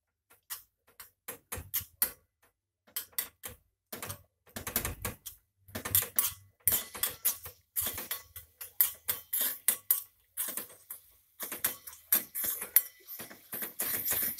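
Steel spoon stirring and scraping in a stainless steel kadai: irregular quick clicks and scrapes of metal on metal as ginger-chili paste is fried in a little oil, with short pauses between bursts of stirring.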